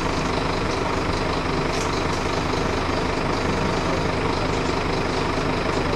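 A heavy vehicle engine idling, a constant drone with a steady low hum.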